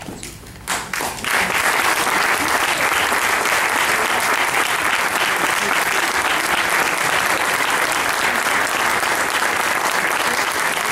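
Audience applauding in a hall. A few separate claps come about a second in, then the applause swells into steady, dense clapping.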